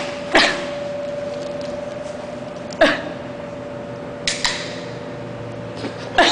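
An aluminium soda can being handled and opened: a few sharp knocks and clacks, and a little over four seconds in a short crack with a fizzing hiss, over a steady hum.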